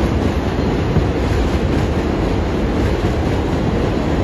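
New York City Subway 7 train running past on its elevated track, a steady rumble of wheels on rail.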